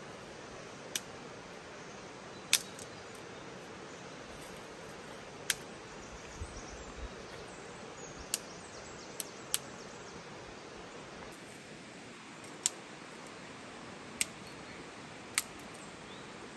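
Dry twigs snapping and being cut with a blade: about ten short, sharp cracks at irregular gaps of one to three seconds, over a steady outdoor hiss.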